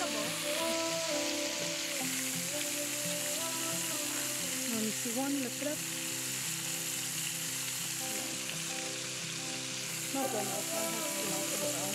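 Oil sizzling steadily as battered pieces fry in a cast-iron skillet, with soft music underneath.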